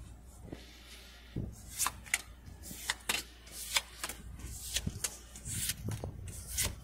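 Pokémon trading cards being flicked through one at a time in the hand: a run of short, crisp paper-card snaps and slides at an irregular pace, starting about a second and a half in.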